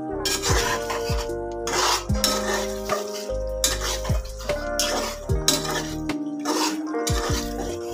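A utensil stirring thick sauce in a metal saucepan, scraping and clinking against the pot in repeated strokes. Background music with a steady melody plays throughout.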